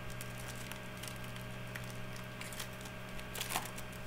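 Trading cards being handled and flipped through, a string of light rustles and clicks with a louder rustle about three and a half seconds in, over a steady electrical hum.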